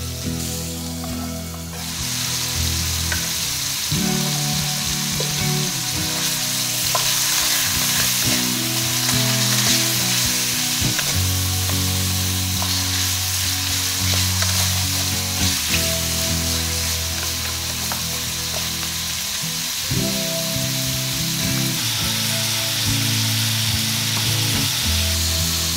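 Chicken pieces sizzling in hot oil in a metal wok, stirred with a wooden spatula; the sizzle gets louder about two seconds in. Background music plays underneath.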